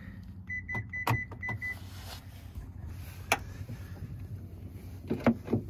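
Car door latch and handle clicking as the locked rear door of a 2016 Kia Optima is worked. A quick run of short electronic beeps with clicks mixed in comes about half a second in, then a single click, then a cluster of sharp, louder latch clicks near the end as the latch finally releases.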